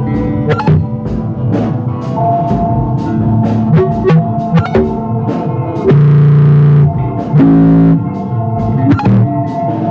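Rock band playing: guitar over a drum kit with a steady beat of cymbal hits, with louder sustained low notes about six seconds in.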